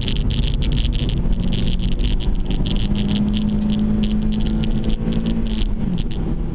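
Toyota Celica's engine heard from inside the cabin while driven hard on track. Its note climbs slowly, then drops suddenly near the end, with an irregular high-pitched rattle over it.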